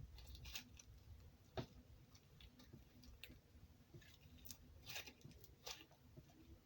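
Butter slime being pressed and stretched by hand, making faint, irregular small clicks and pops.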